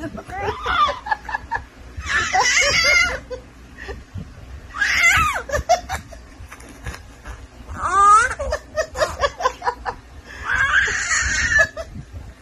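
Baby laughing and squealing in about five short bursts, high-pitched and breathy, with a wavering squeal about eight seconds in.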